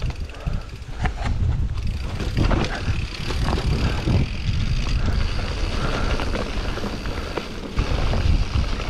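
Mountain bike being ridden over a rough forest trail: a steady rumble of tyres on the ground, with scattered clicks and rattles from the bike.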